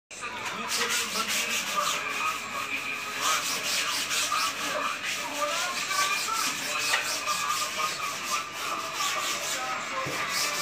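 Repeated scrubbing strokes, several a second, going on steadily.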